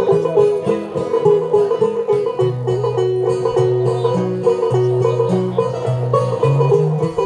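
Live bluegrass instrumental break between verses: a banjo picking a busy run of notes over a slower, lower line from a second string instrument, with no singing.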